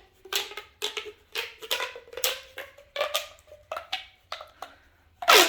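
A child making a quick series of short, sharp noises, about three a second, over a faint pitched hum, with a louder one just before the end.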